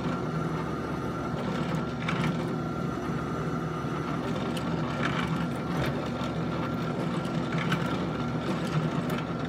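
Benchtop drill press running steadily, its bit cutting a hole through a steel rebar rod clamped in a drill-press vise.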